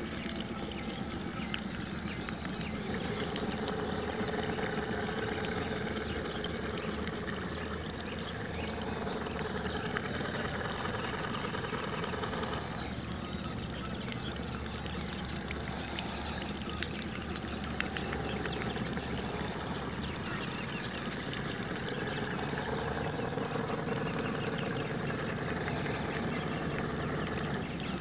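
Motorized Wonderduck Black Skimmer splashing duck decoys churning the pond surface and throwing up spray: a continuous splashing of water over the hum of their small motors.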